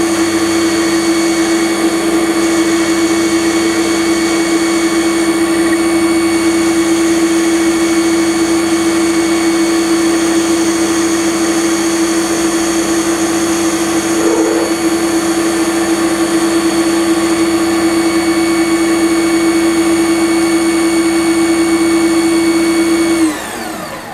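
Small benchtop metal lathe running steadily with a loud, constant whine while it turns a metal shaft. About a second before the end the motor is switched off and the whine falls away as the spindle spins down.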